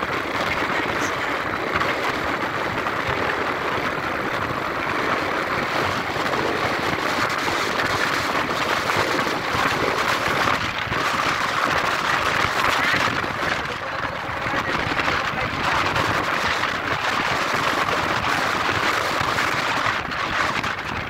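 Steady rush of wind and road noise from a vehicle riding along a paved road.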